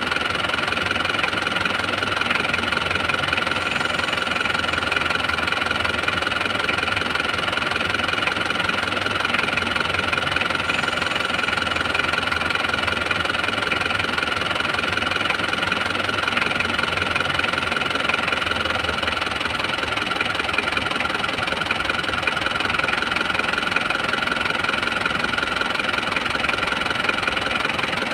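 Car engine idling steadily, with a steady high whine over it, while water is poured into the open radiator filler neck; the engine is run so fresh water circulates and flushes the dirty water out of the engine block.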